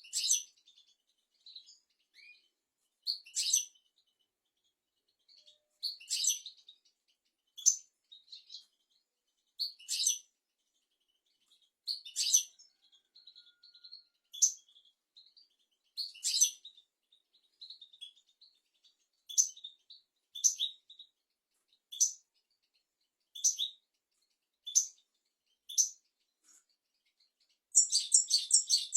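European goldfinch calling with short, bright chirps spaced about one to two seconds apart, breaking into a dense, rapid twittering phrase near the end.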